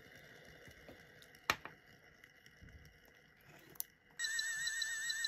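A sharp click about a second and a half in and another just before four seconds, then an electronic sonic-screwdriver sound effect switches on suddenly: a high, fast-warbling whirr that carries on steadily.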